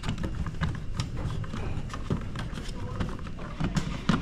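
A fire alarm speaker strobe being worked into its ceiling mount by hand, with a string of small irregular plastic clicks and knocks as its retaining flaps catch.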